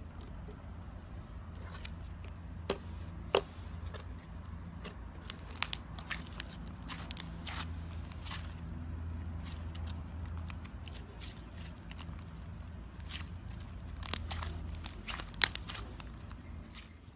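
Pink-purple slime being squeezed and kneaded by hand, giving irregular crackling clicks and pops, thickest around the middle and again near the end. A low steady hum runs underneath.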